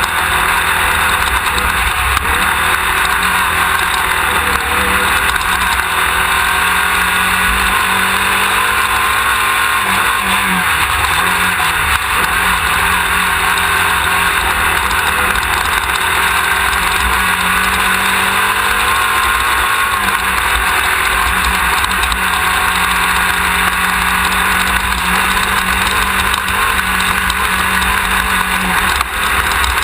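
Class 1600 off-road race buggy running hard, heard from a rear-mounted onboard camera: its air-cooled Volkswagen flat-four drones steadily, with the engine note rising and falling with the throttle, under a heavy low rumble.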